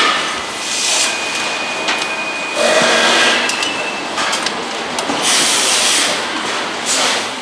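Engine assembly line factory noise: several bursts of hissing air, a few sharp clicks and a thin steady whine for a few seconds in the first half, over a constant background din.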